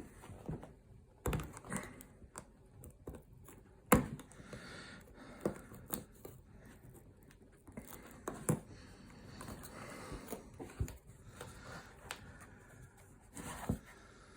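GEC cattle knife's blade slicing through an old worn-out shoe: soft scraping cuts broken by irregular sharp knocks and clicks as the shoe and knife are handled, the loudest knock about four seconds in.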